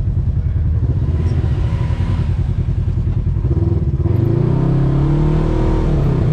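Side-by-side off-road buggy engine running at low revs, then revving up about three and a half seconds in and easing back off near the end.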